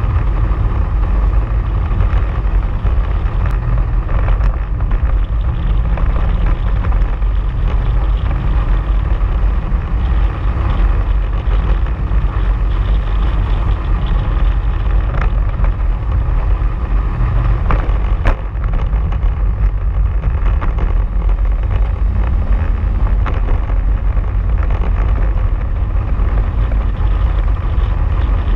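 Polaris RZR side-by-side's engine running steadily as it drives along a dirt trail, with a low rumble of the drive and a few sharp knocks from the rough track a little past the middle.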